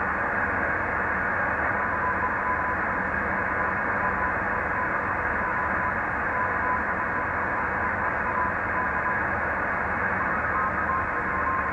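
ICOM IC-725 HF transceiver's speaker giving out band noise as a steady, dull hiss with no highs. A faint whistle of a carrier comes and goes within it.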